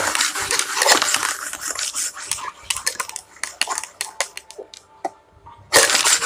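Dice rattling in a plastic cup and clicking on a hard tabletop: a dense clatter at first, then separate clicks, then another burst of rattling near the end.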